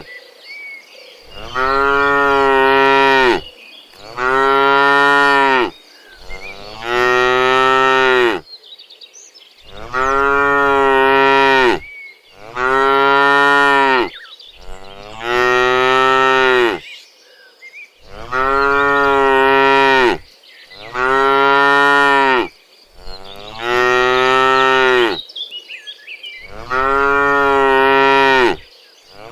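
Domestic cows mooing over and over: about ten long, steady-pitched moos of around two seconds each, following one another with short pauses.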